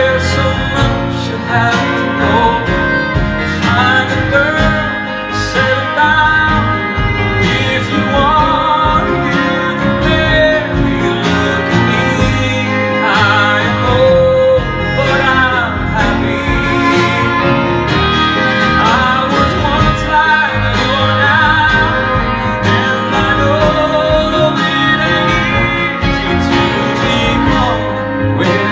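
A man singing a ballad into a microphone, backed by a live acoustic band of acoustic guitars, fiddle, double bass and piano.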